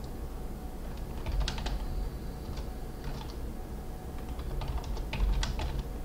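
Computer keyboard being typed in three short bursts of keystrokes, the longest near the end, over a low steady hum.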